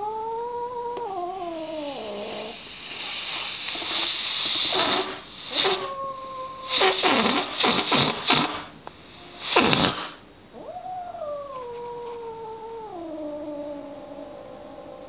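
A frightened, defensive cat, back arched and fur puffed, growl-yowling in long wavering calls that fall in pitch. Midway it breaks into hissing and several sharp spits, then goes back to a long falling yowl near the end.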